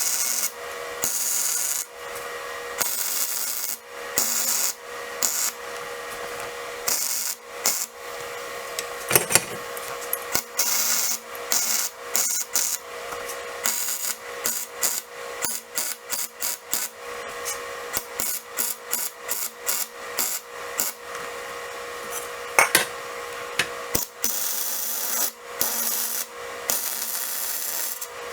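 Arc welding on steel tubing: a series of crackling weld bursts of a second or two each, getting shorter and choppier near the end, over a steady welder hum.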